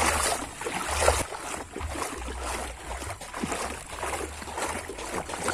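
Water sloshing and splashing as someone wades along a shallow, muddy stream. Gusty low rumble from wind and handling on the microphone runs underneath.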